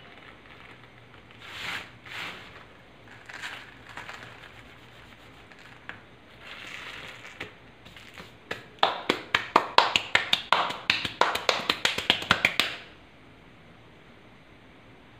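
Fingertips pressing and patting crushed gym chalk powder. A few soft swishes come first, then a quick run of crisp crunchy taps, about six a second, for about four seconds before stopping.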